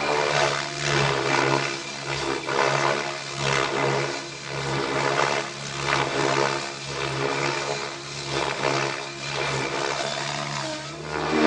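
Radio-controlled helicopter flying 3D aerobatics: a steady motor whine under rotor-blade whooshing that swells and fades roughly once a second as the blade pitch changes through flips and rolls.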